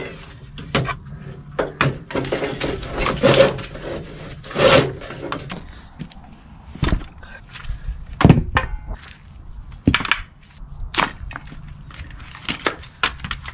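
Removed go-kart parts being handled and set down on a sheet of OSB: the old engine, wiring harness and exhaust pipe clatter and knock against the wood, with rustling of wiring between several sharp knocks, the loudest a little past the middle.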